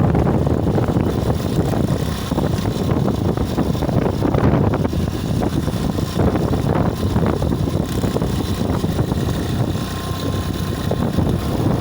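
Steady wind rush buffeting the microphone while riding along a road, with road and traffic noise.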